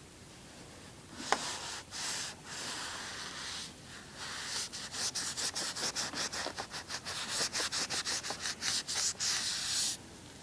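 A cloth rubbing over an MGB dash pad, wiping excess water off the dampened crack. The rubbing starts about a second in and turns into quick back-and-forth strokes, about four or five a second, that stop abruptly near the end.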